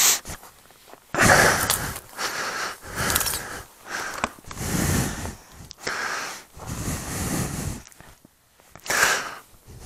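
Wind buffeting the microphone of an action camera on a moving motorcycle: uneven gusts of rushing noise, about one a second, with short gaps between.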